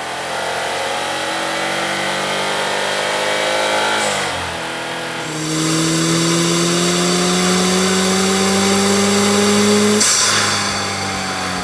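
Turbocharged 2.0-litre flat-four of a 2015 Subaru WRX, fitted with a K&N cold air intake, accelerating hard with its pitch climbing steadily. About four seconds in the revs drop, as at a gear change, then climb again, louder, until it lets off about ten seconds in.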